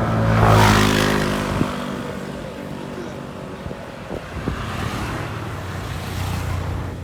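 A motor vehicle passes close by, its engine note dropping in pitch as it goes past about half a second in. Engine and road noise then settle to a lower, steady level.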